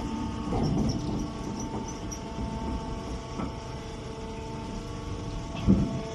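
Hay baling press running: a steady machine hum, with some clunking about half a second in and a louder knock near the end.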